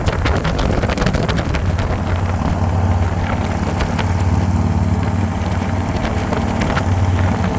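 Harley-Davidson V-twin motorcycle engine running steadily under way, a low even drone.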